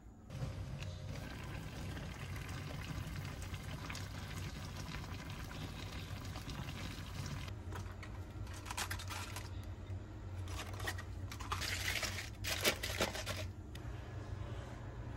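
A pot of pork stew (jeyuk-tang) cooking with a steady liquid sound over a low hum, with clattering and rustling handling noises about eight seconds in and again around twelve seconds in.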